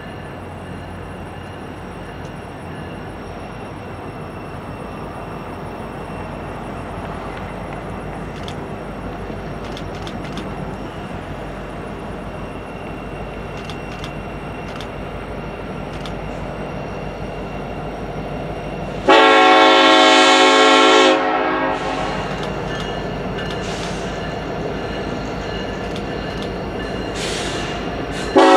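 Arkansas & Missouri SD70ACe diesel locomotives pulling a freight train, their engine rumble slowly growing louder as the train approaches. About two-thirds in, the lead unit sounds its multi-note air horn in one blast of about two seconds, and a second blast starts right at the end.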